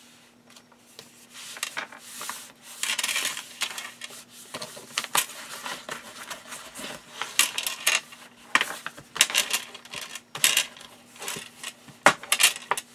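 Paper being rubbed and smoothed flat by hand and with a bone folder as it is glued down, in a series of swishes and scrapes, with light clinks from a metal chain bracelet on the working wrist.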